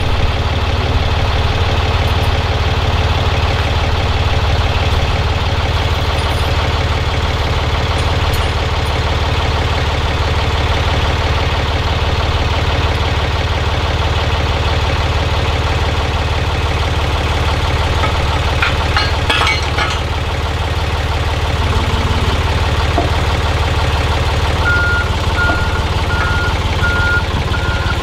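A heavy diesel engine idling steadily. Near the end a backup alarm starts beeping, about two beeps a second.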